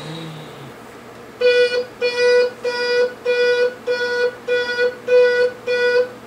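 Battery sound module on a Bruder toy wheel loader's cab roof, button-pressed, playing electronic beeps: eight evenly spaced beeps about one every 0.6 s, starting just over a second in. Before the beeps, a faint low drone from the module stops.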